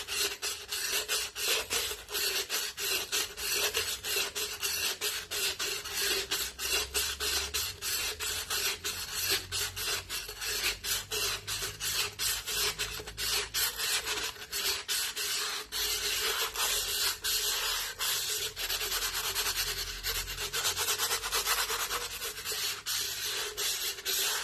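Sandpaper wrapped around a round container rubbed quickly back and forth inside the cut rim of a glass bottle: a rasping scrape of several strokes a second, grinding down the sharp inner edge of the cut.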